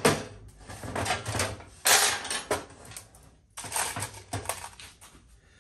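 Loose steel bolts and nuts clinking and rattling in a metal parts tray as hands sort through them, with several louder clanks (right at the start, about two seconds in, and around four seconds) and small clicks between.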